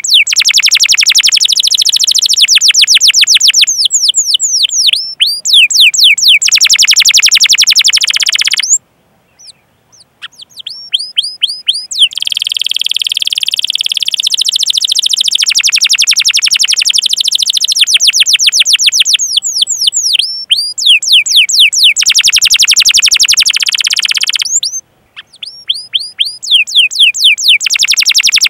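Domestic canary singing: rapid series of high, downward-sweeping 'cuit cuit' chirps running into long, fast rolling trills. The song breaks off briefly about nine seconds in and again near twenty-five seconds.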